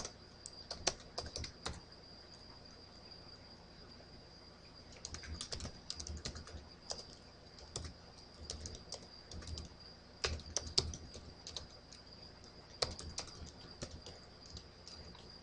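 Computer keyboard typing in short bursts of keystrokes separated by pauses, the longest about three seconds, over a faint steady high-pitched whine.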